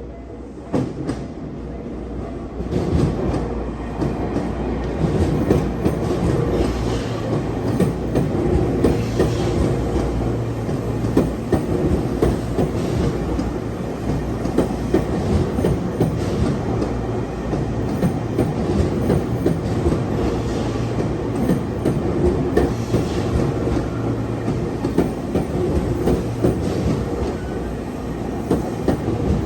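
Tokyu electric train passing over a level crossing, its wheels clicking over the rail joints above a steady running rumble that swells about three seconds in and holds.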